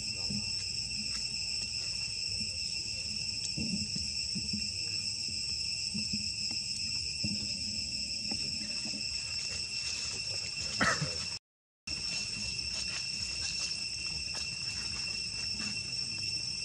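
Steady high-pitched insect chorus droning without a break, over a low background rumble. A brief sharp sound a little past the middle is followed by about half a second where the sound cuts out.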